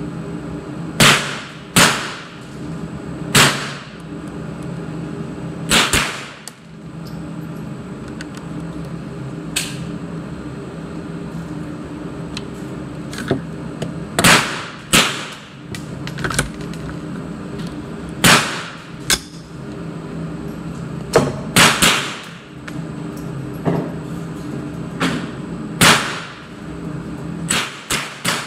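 Semi-automatic AR-style rifle fired shot by shot in an indoor range: more than a dozen sharp cracks at irregular intervals, some in quick pairs, each with a short echo off the room. A steady hum runs underneath.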